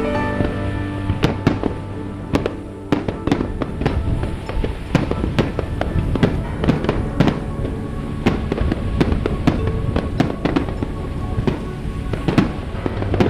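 Fireworks bursting in quick succession, several sharp bangs and crackles a second, over steadily playing music.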